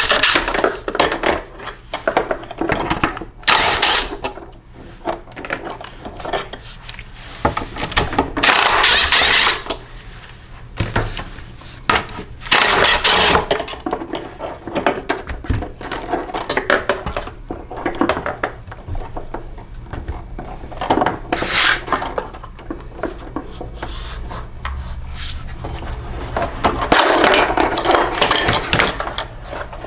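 Hand tools and metal mower parts clattering and scraping as they are handled, in irregular bursts about a second long.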